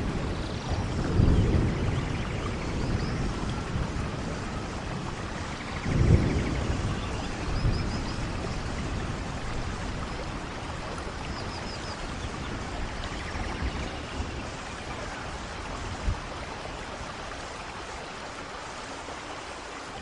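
Steady heavy rain in a thunderstorm, with rolling thunder rumbling about a second in and again around six seconds, the rain easing off slightly toward the end.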